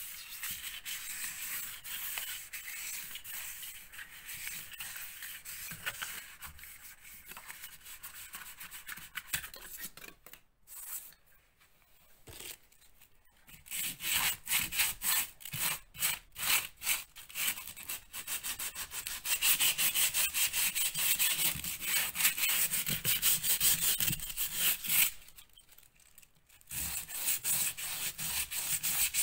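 Hand sanding: a sanding block rubs steadily over cured expanding foam around a socket box, then a sheet of sandpaper scrubs the patched plaster in fast back-and-forth strokes. The sanding stops briefly twice.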